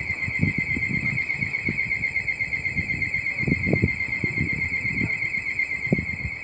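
Steady high-pitched ringing whine with a fast warble, the rails or overhead wires singing as a train approaches the station. Irregular low rumbling gusts sound underneath.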